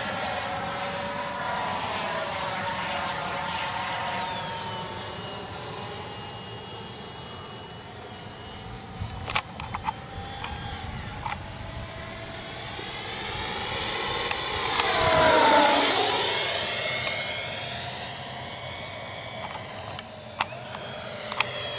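Freewing Avanti RC jet's 80 mm electric ducted fan whining in flight. The whine fades as the jet flies off, then builds to its loudest as it passes by about two-thirds of the way in, its pitch dropping as it goes away. A few short clicks in between.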